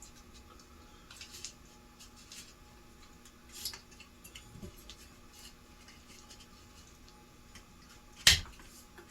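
Scattered small clicks and rustles of parts and tools being handled on a workbench, with one sharp knock about eight seconds in.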